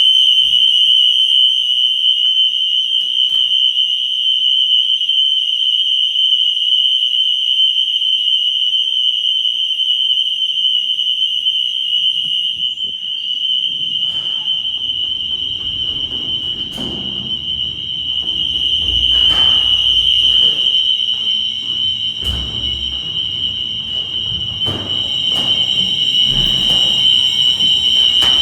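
Fire alarm sounding a loud, continuous high-pitched tone without breaks; it is the building's evacuation alarm, set off by a shorted detector zone. From about halfway through, low rumbling and scattered knocks of movement join it.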